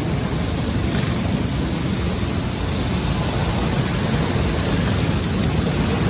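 Racing go-karts' small single-cylinder engines running steadily as a pack of karts drives past through the turn, in a large indoor arena hall.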